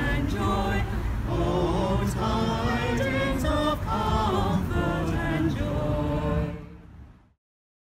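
A small group of men's and women's voices singing together in harmony without instruments. The singing fades out near the end.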